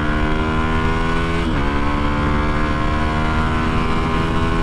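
Motorcycle engine pulling in gear, its pitch climbing steadily, with a sudden dip about a second and a half in as it shifts up, then climbing again. There is low wind rush underneath.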